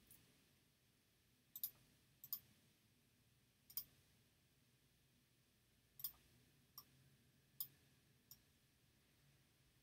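Computer mouse clicking about nine times at an uneven pace, with two quick double clicks early on and then single clicks a second or two apart, over faint room tone.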